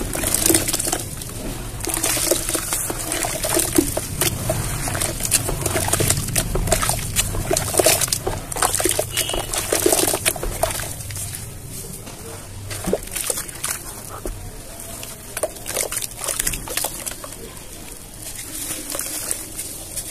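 Hands stirring and squeezing wet cement slurry in a plastic tub, making dense, irregular wet splashes. The sound is busiest in the first half and quieter from about eleven seconds in.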